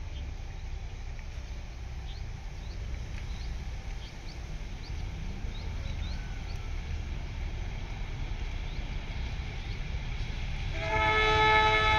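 Steady low rumble, then a train horn sounds near the end: a chord of several steady tones, held.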